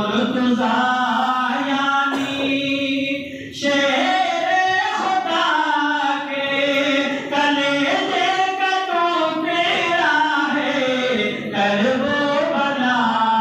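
A man's unaccompanied devotional chanting into a microphone, with long, ornamented notes that waver up and down and a short breath pause about three seconds in.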